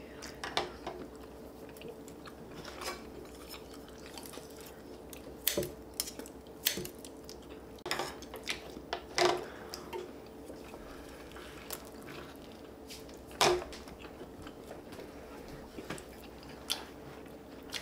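Close-up eating sounds: chewing and biting of stir-fried chicken, with scattered sharp clicks of chopsticks and a metal spoon against the steel pan and bowls. A faint steady hum runs underneath.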